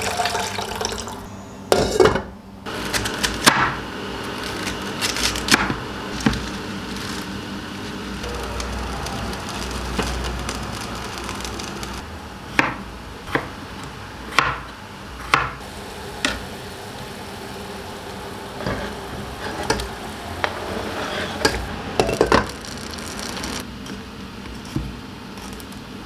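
Kitchen work: water from a tap runs briefly at the start, then scattered knocks and clinks of pots, dishes and utensils sound over a low steady hiss.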